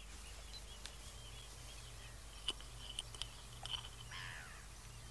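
Quiet outdoor background with small birds chirping, a few faint clicks and a faint low hum.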